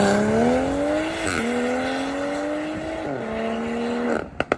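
Car engine accelerating hard, its pitch climbing through the gears with two quick upshifts, then holding steady before cutting off abruptly near the end.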